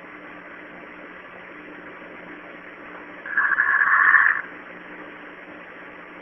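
A man snoring in a heavy drunken sleep: one loud, rasping snore of about a second a little past the middle, over a steady background hiss and hum.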